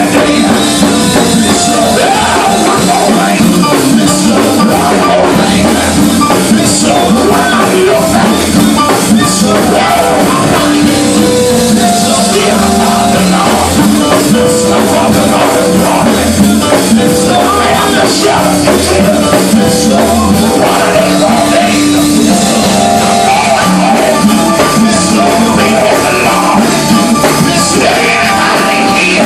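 Loud live gospel music from a church band, with drums and held chords, and voices singing along.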